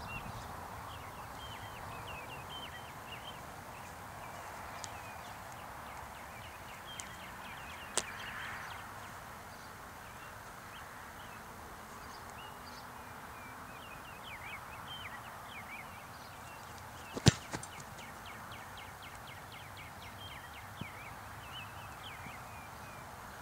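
A single sharp thump of a football being kicked from a holder for a 45-yard field goal attempt, about two-thirds of the way in, followed by a fainter knock.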